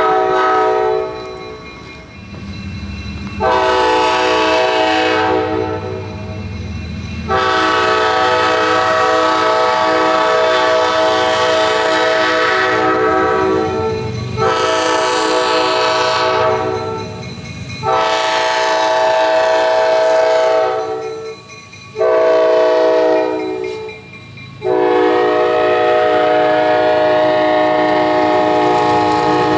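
A diesel locomotive's air horn sounds a series of long blasts with one shorter one, a chord-like horn over the low rumble of a passing train. The repeated long blasts are typical of a train signalling at grade crossings.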